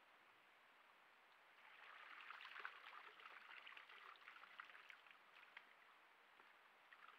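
American black bear splashing in a shallow muddy pool, water pouring and dripping off its fur as it rises and moves. The splashing starts about two seconds in and dies away a few seconds later; faint.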